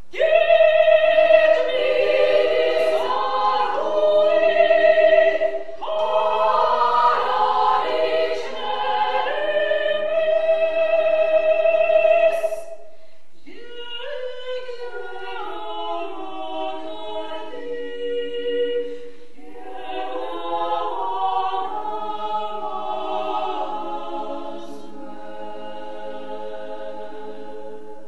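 Women's choir singing a cappella in a stone church. Full, loud singing runs for about twelve seconds, then breaks off into a quieter passage with a low note held underneath the melody.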